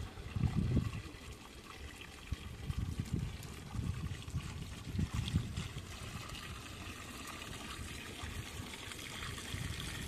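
Water pouring in a thin, steady stream from a plastic jerrycan into a plastic bottle, trickling and splashing as the bottle fills.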